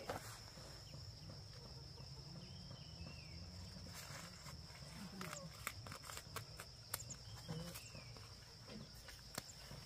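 Faint outdoor ambience: a steady high insect-like whine, a couple of short bird chirps, and scattered light clicks over a low murmur.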